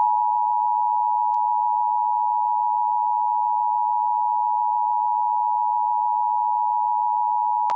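Emergency Alert System attention signal: the two-tone alarm of 853 and 960 Hz sounded together, held steady for about eight seconds and cutting off abruptly near the end. It is the alert tone that precedes the spoken message of a statewide required monthly test.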